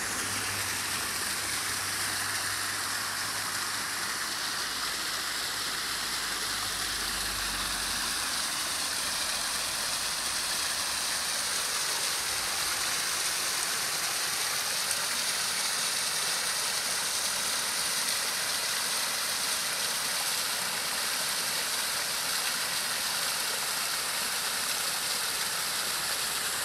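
Small waterfall splashing down rocks into a shallow stream: a steady rush of running water.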